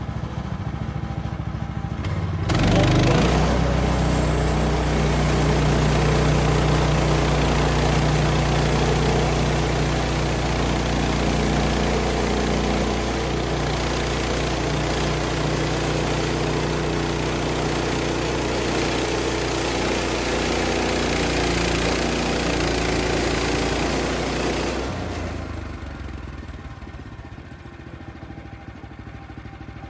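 The 420cc single-cylinder petrol engine of a Woodland Mills HM130 Max bandsaw mill idles, is throttled up sharply about two and a half seconds in, and runs steadily at high speed for about twenty seconds before dropping back to idle near the end.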